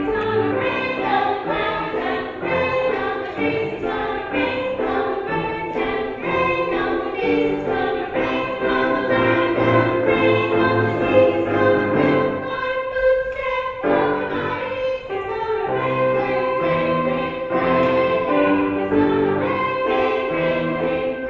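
Children's choir singing a cantata song with instrumental accompaniment, the music thinning briefly about two-thirds of the way through.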